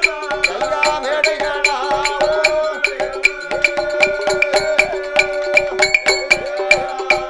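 Villupattu ensemble music without words: held melody notes over a quick, steady percussion beat with a bright metallic jingle on each stroke.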